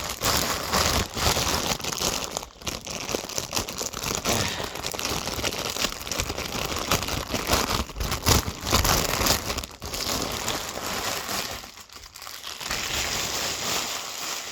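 Packaging crinkling and rustling continuously as a plush toy is unwrapped and pulled out of it, with a short lull near the end.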